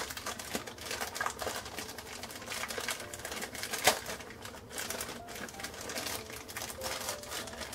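Plastic packaging crinkling and crackling in quick, irregular bursts as a pencil case is pulled out of its plastic wrapper by hand, with one sharper crackle about four seconds in.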